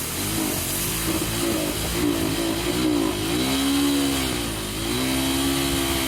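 Yamaha SZ 153cc motorcycle's single-cylinder four-stroke engine revving, its pitch rising and falling several times.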